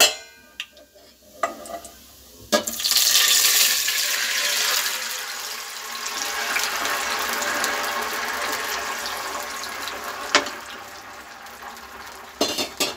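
Tomato juice poured into a pan of hot ghee and browned cumin: after a few clinks of utensils, a loud sizzling splash starts about two and a half seconds in and slowly dies down as the liquid settles, with one more knock of the ladle near the end.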